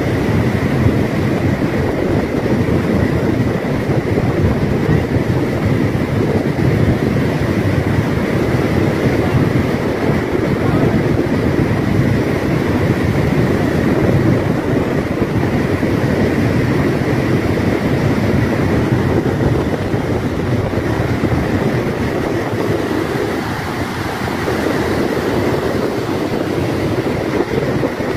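Flash-flood torrent of a swollen mountain river, rushing loud and steady beneath the bridge.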